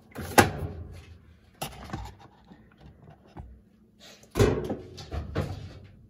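Several sharp knocks and clunks of handling, the loudest about four and a half seconds in, over a faint low hum.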